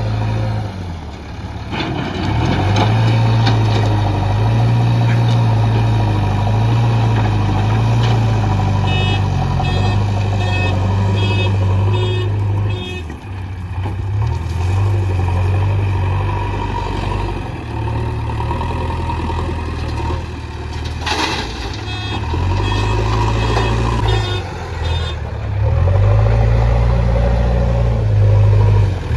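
Diesel engine of a JCB backhoe loader working under load while loading mud, rising and falling as it works. A reversing alarm beeps in two runs of about two beeps a second, and there is a single knock about two-thirds of the way through.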